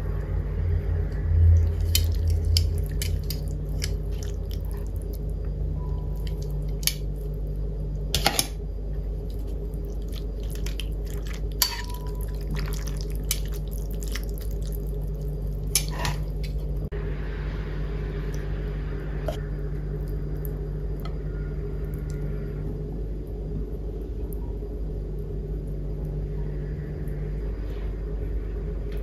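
Metal tongs clinking against a ceramic bowl as noodles are lifted in broth: a scatter of sharp clinks in the first half, the loudest about eight seconds in, two of them ringing briefly, with faint liquid sounds. A steady low hum runs underneath.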